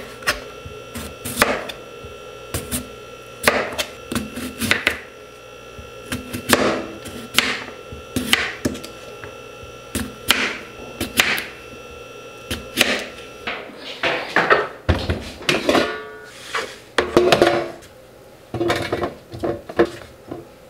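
Chef's knife slicing through raw potato and knocking on a plastic cutting board, one sharp knock about every second. After about fourteen seconds the knocks give way to lighter clatter of potato slices being handled on the board.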